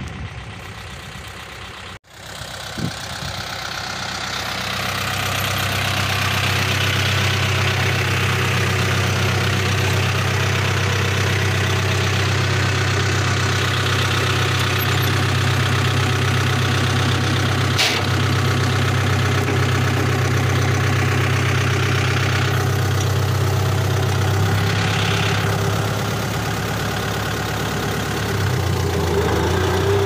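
Farm tractor engine running steadily, heard from the driver's seat; its note shifts a little twice near the end.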